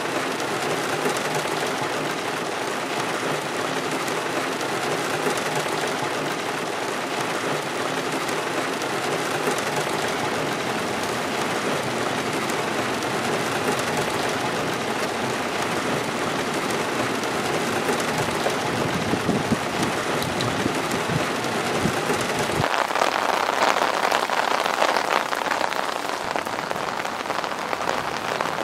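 Heavy rain drumming steadily on the roof of a car, heard from inside the cabin. About 23 seconds in it cuts to a brighter, hissier rain falling in the open.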